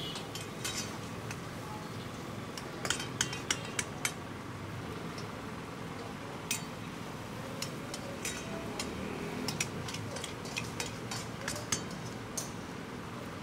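Scattered clinks and clatters of metal utensils and dishes, with a quick run of clinks about three to four seconds in, over a steady background din of a busy eatery.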